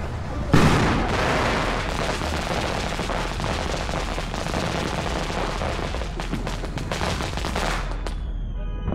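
A ground fountain firework crackling in a rapid, dense stream of pops, opened by a sharp bang about half a second in. The crackle cuts off suddenly near the end.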